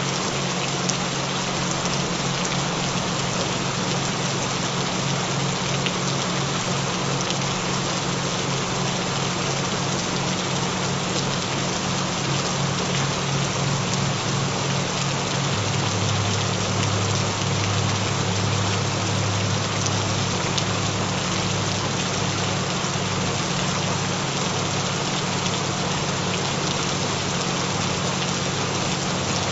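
Gentle rain sounds as an even, steady wash, over low droning binaural-beat tones that pulse rapidly. A further low tone comes in about halfway through.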